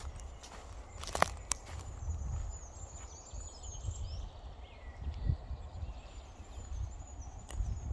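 Outdoor ambience: a steady low rumble with a couple of sharp clicks about a second in, and faint high bird chirps through the middle and latter part.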